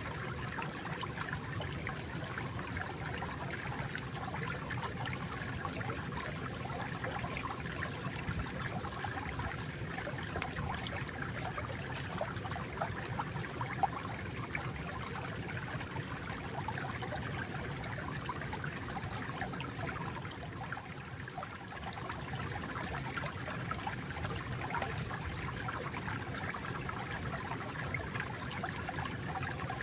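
Small stream of water trickling and babbling steadily, dipping slightly for a moment about two-thirds of the way through.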